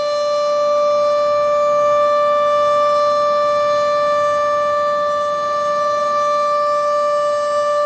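Sentry 14V outdoor warning siren sounding a steady tone, its pitch holding level while the loudness swells gently.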